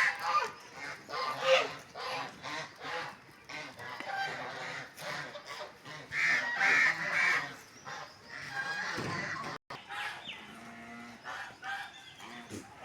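Domestic white geese honking again and again, with a loud run of three honks about six seconds in. The sound cuts out for a moment shortly before the ten-second mark.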